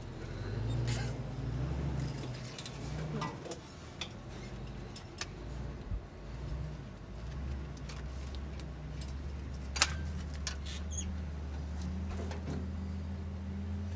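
An engine running steadily at low pitch, with scattered metallic clicks and clinks of hand tools and one sharp click about ten seconds in.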